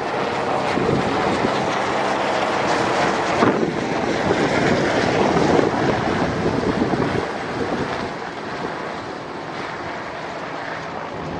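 Helicopter rotor chop from a helicopter flying past, with wind noise on the microphone. It is loudest in the middle and eases off a little after about seven seconds.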